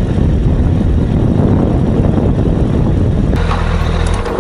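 BMW S1000RR's inline-four engine running as the motorcycle rolls slowly along a street, heard as a dense low rumble. Near the end it settles to a steady, even idle as the bike comes to a stop.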